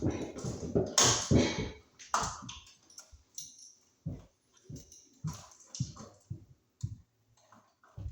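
Hands working a wall switch and its wiring: a second or two of rustling and scraping, then irregular small clicks and taps.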